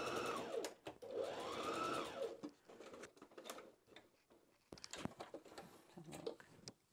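Brother HF27 heavy-duty sewing machine stitching across thick folded denim: the motor runs, stops for a moment, then runs once more with its whine rising and falling in pitch, and stops about two seconds in. After that come scattered clicks and handling noise as the fabric is taken out from under the foot.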